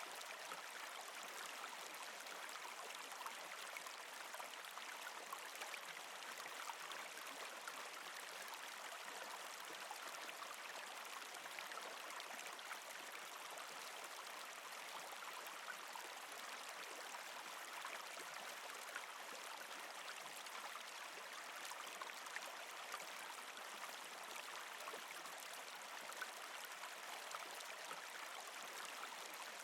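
Mountain stream babbling over rocks: a steady rush of water with small splashes and trickles throughout.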